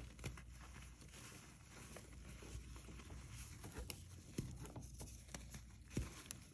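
Hands squeezing and crumbling soft reformed cornstarch chalk: a steady soft crunching with scattered crisp crackles and squeaks, the sharpest about four and a half and six seconds in.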